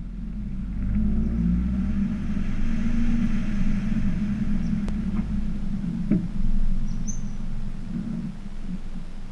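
Mazdaspeed6 moving with a steady low engine and road rumble, with a brief knock about six seconds in and a few short, high creaks from the rear suspension near the end. The creaks come from the rear sway bar end links, which the owner puts down to the ten-year-old stock end links working against a new Whiteline 24 mm rear sway bar.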